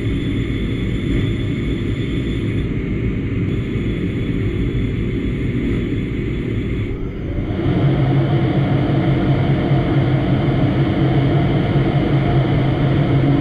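Doosan Puma 2600SY II CNC lathe running, its spindle turning an aluminium part while a turret tool cuts it, with a steady machine whine. About halfway through the sound grows louder, with a stronger low hum.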